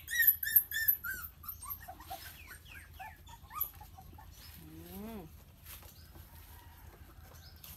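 Bangkaew puppies whining and yelping in high, falling squeaks: a quick run of them at the start, then a scattering more a couple of seconds in.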